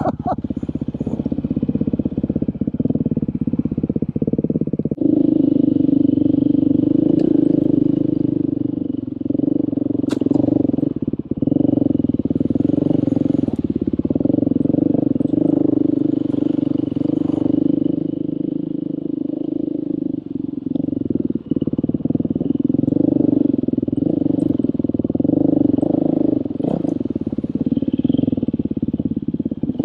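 Dirt bike engine running steadily under throttle on the trail, getting louder about five seconds in, with a few brief dips and several sharp knocks along the way.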